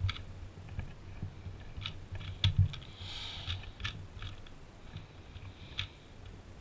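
Layers of a plastic 2x2 Rubik's cube (Cyclone Boys) being turned by hand, clicking as they snap round at an irregular pace, with a brief swish about halfway through.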